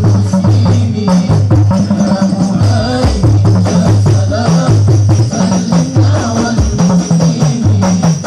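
Habsyi ensemble playing: hand-beaten frame drums and a small hand drum keep a quick steady rhythm under chanted devotional singing.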